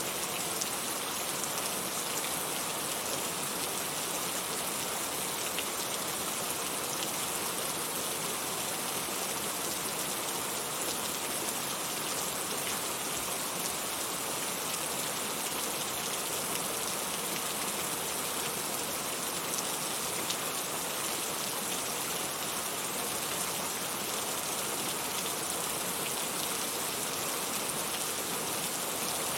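Heavy rain falling steadily, a dense, even hiss of drops with faint individual patters on a surface.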